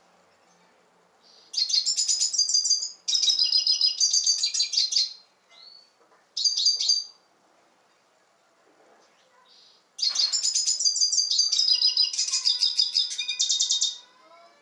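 Male red siskin (Carduelis cucullata) singing in four bursts of fast, high twittering trills. The last burst is the longest, about four seconds.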